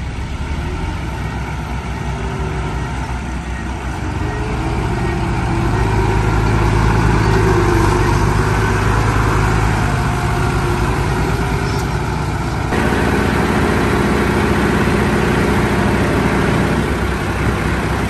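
Heavy diesel engine of earthmoving machinery running, growing louder from about four seconds in; the sound changes abruptly about thirteen seconds in.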